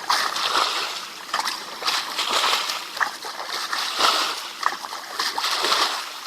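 Water splashing in short, irregular surges, as a net and hands are worked through the water while fishing.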